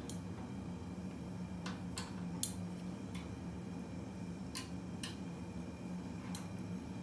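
Metal fork and spoon clinking against a stainless steel roasting tray and wire rack as chicken pieces are turned: a scattering of light, irregular clicks, the loudest about two and a half seconds in, over a steady low hum.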